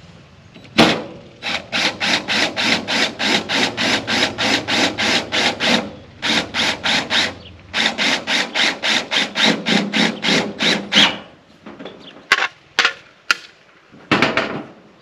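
A self-sealing screw is driven with a power driver through a ribbed steel siding panel into the wooden framing. It sounds as a rapid, even rattle of sharp metallic strokes, about four a second, in two long runs with a short run between them. A few separate sharp knocks on the panel come near the end.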